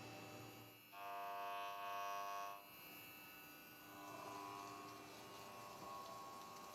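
Faint, steady electric hum or whine of a running machine, with several even tones. It swells louder for about a second and a half near the start, then settles back to a low hum.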